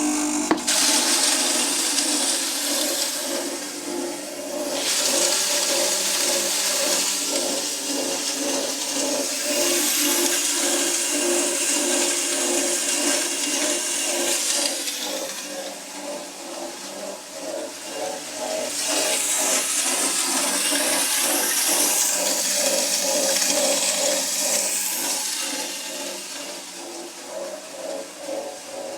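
Grain mill grinding dried corn into meal: a steady hum under a rushing hiss that swells and fades three times as the kernels pour through, easing near the end.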